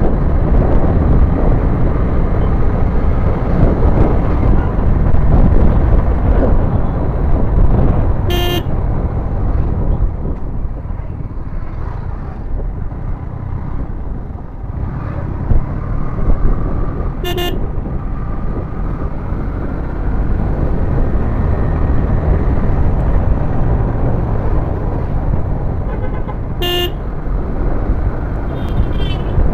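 Yamaha MT15's 155 cc single-cylinder engine and wind noise while riding, dipping quieter for a few seconds in the middle. A horn gives three short toots about nine seconds apart.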